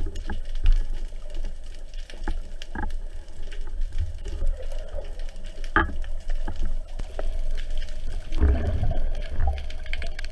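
Underwater sound picked up through a camera housing mounted on a speargun: a steady low rumble of moving water with scattered clicks and knocks from the gun and its catch being handled, and a louder rush about eight and a half seconds in.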